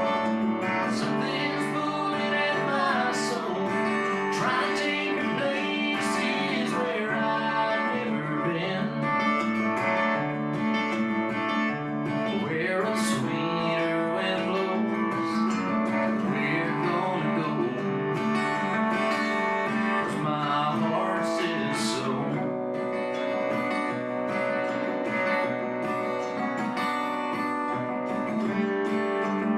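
Live acoustic country music, with a strummed acoustic guitar playing steadily.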